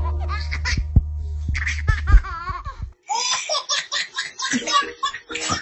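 Babies laughing hard in repeated fits, over a steady low hum in the first half. The laughter breaks off for a moment about three seconds in, then starts again higher and more squealing.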